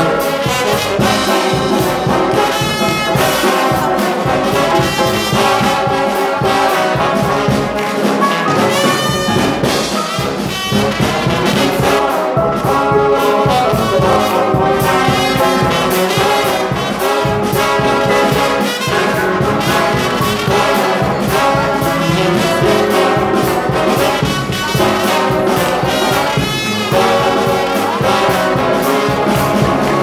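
Trombone-led brass band playing music loudly and without a break, several trombones together with a sousaphone.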